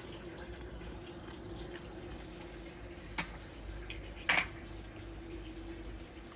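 Two short, sharp clicks about a second apart, the second louder, over a steady low hum.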